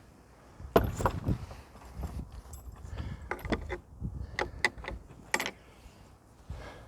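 Metal gate being handled and opened: a run of irregular clanks, clicks and rattles from its latch and frame, some with a short metallic ring.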